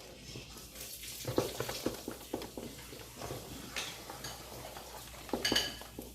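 Wooden spoon stirring ogbono soup in a pot on the heat, with repeated short knocks and scrapes of the spoon against the pot over a steady hiss. The stirring keeps the ground ogbono from going lumpy.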